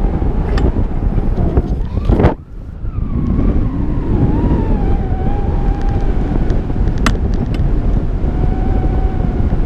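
Airflow rushing over the microphone of a camera on a hang glider in flight: loud, steady wind buffeting with a faint wavering whistle. About two seconds in, the rush cuts out for a moment and comes back.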